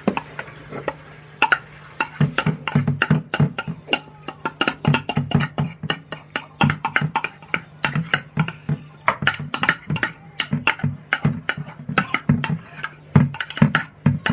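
Utensil-and-crockery clatter: a wet mixture is scraped off a ceramic plate into a metal bowl, giving a quick, irregular run of clicks and knocks. A steady low hum runs underneath.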